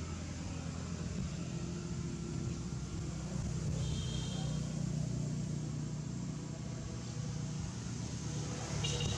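Steady low rumble with a brief high-pitched chirp about four seconds in.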